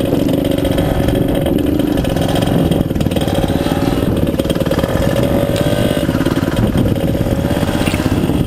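Honda CRF150R dirt bike's single-cylinder four-stroke engine running steadily under way, picked up close by a helmet-mounted microphone.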